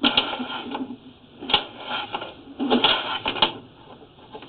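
Drain cleaning machine cutting tree roots deep in a clay sewer line, clattering and rattling in irregular bursts.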